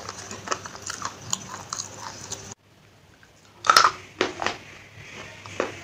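Close-miked crunchy biting and chewing, a string of sharp crunches. It drops to near silence for about a second midway, then comes one loud crunching bite and a few more crunches.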